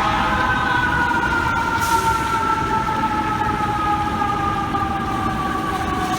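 FDNY ladder truck's mechanical siren winding down, its wail sliding slowly and evenly lower in pitch, over the rumble of the truck and street traffic.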